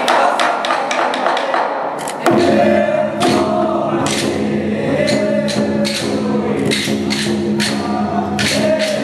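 Traditional temple ritual music: percussion strikes with, from about two seconds in, a steady drone and a wavering melody over it.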